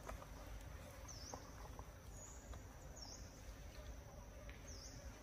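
Faint outdoor ambience: a low rumble, a steady thin high-pitched tone that dips briefly a few times, and a few soft ticks.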